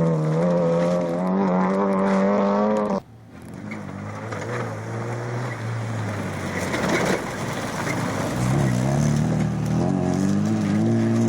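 Rally car engine under hard acceleration, its pitch rising, cut off suddenly about three seconds in. A rougher, noisier stretch follows, then another rally car's engine comes in near the end, climbing in pitch.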